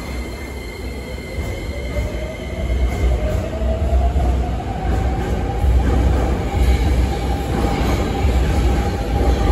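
Beijing Subway Line 1 electric train pulling out of the platform and accelerating, with a low rumble of wheels on rail. The electric whine rises in pitch and then levels off, and the sound grows louder as the cars pick up speed.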